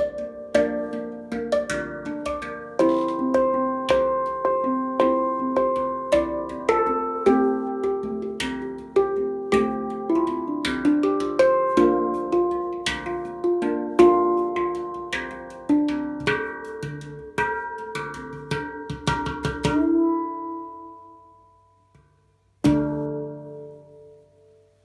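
Hang drum (handpan) played by hand: a steady run of struck, ringing steel notes that ends in a quick flurry of strokes and fades away, then a single last note a couple of seconds later, left to ring.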